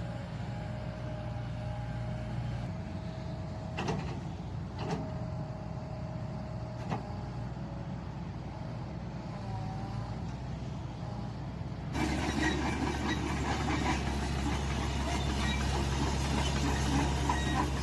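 Hitachi ZX160LC hydraulic excavator's diesel engine running, with a steady whine over it. Two sharp clicks come about four and five seconds in, and about twelve seconds in the sound steps up, louder and rougher.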